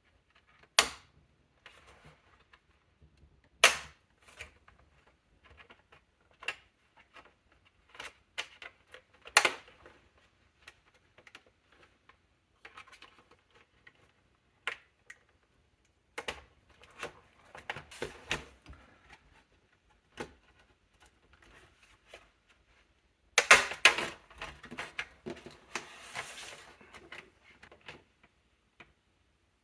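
Sharp clicks and taps of small plastic and metal parts being handled as an MSI Thin A15 laptop is worked on, with a dense run of clicks about 24 seconds in.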